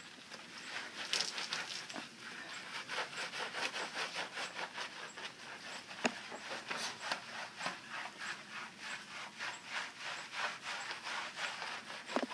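Hands scrubbing a standard poodle's wet coat lathered with Chubbs shampoo bar: a quick, rhythmic wet rubbing at about four strokes a second.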